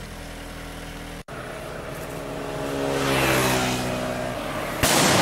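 A road vehicle's engine runs and a vehicle passes, growing louder and rising in pitch about three seconds in. Near the end comes a sharp, loud bang from a firecracker thrown to scare off wild elephants.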